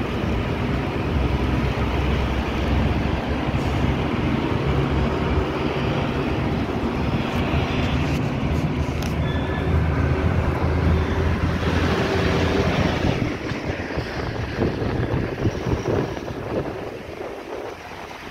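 Road vehicle driving along a mountain road, heard from inside: a steady low engine drone under dense road and tyre noise, with a few brief rattles partway through. The sound eases off over the last few seconds.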